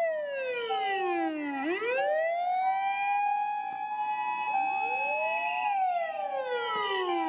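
Emergency vehicle sirens. A wailing siren falls slowly, climbs back up, holds high for a few seconds and falls again. Under it an ambulance siren alternates between two notes.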